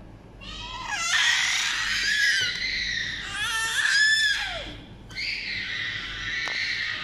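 A young child shrieking: high-pitched, gliding screams in three long stretches, with short breaks about 3 and 5 seconds in.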